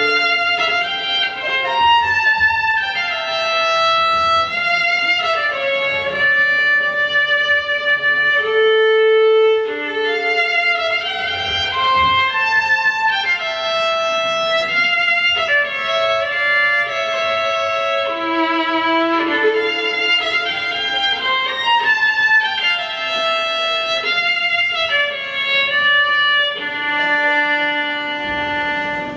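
Violin played live: long held notes in phrases that step downward, the descending figure repeated several times.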